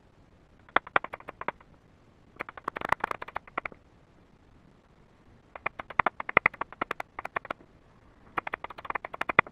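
Small thin pieces of sterling silver and paper handled on a metal bench block, giving four short bursts of quick light clicks and crackles.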